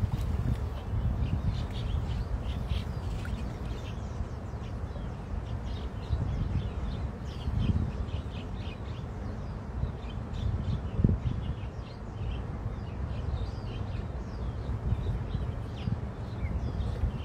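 Small birds chirping repeatedly in short calls over a steady low rumble.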